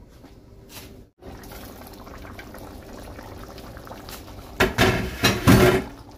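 A pot of curry chicken sauce bubbling as it simmers, a steady low bubbling hiss. Two louder stretches of noise come near the end, about a second apart.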